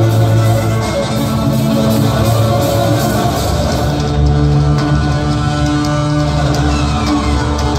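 Live rock-style music on amplified cellos, with long held notes and a sliding fall in pitch near the end. It carries the echo of a large arena.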